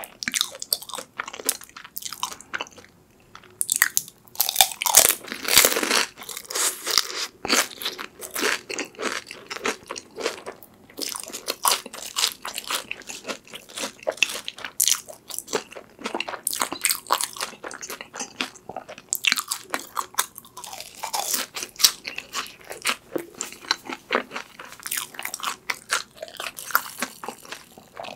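Close-miked crunching and chewing of crispy fried sweet potato cheese sticks, with irregular crackly bites and chews, densest a few seconds in.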